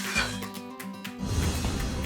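Intro music: steady tuned notes with a short swooping sound effect near the start, and a fuller low beat coming in a little past halfway.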